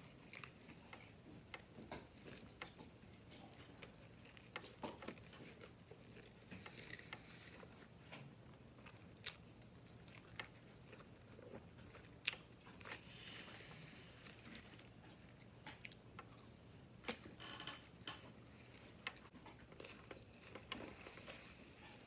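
Faint chewing of an Italian beef sandwich: wet mouth smacks and short clicks at irregular intervals, with a quick run of clicks about seventeen seconds in.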